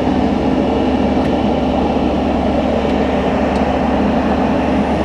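Steady, loud running noise of the aerial ladder truck's engine and hydraulics as the ladder swings round.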